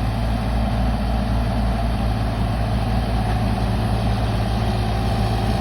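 Kubota KX033 mini excavator's diesel engine running steadily as the machine lifts a 60 cm pipe.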